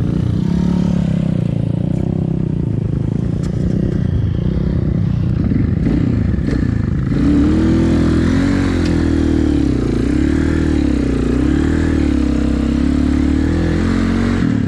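Motorcycle engine running at low speed through soft sand; about seven seconds in it revs up louder and its pitch keeps rising and falling as the throttle is opened and eased off.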